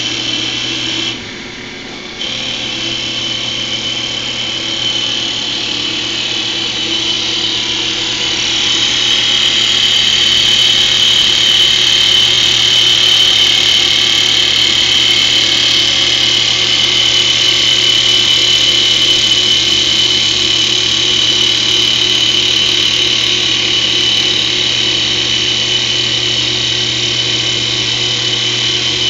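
CNC wood lathe cutting a wooden spindle: a steady high machine whine over the hiss of wood being cut away. It dips briefly about a second in and grows louder about eight seconds in.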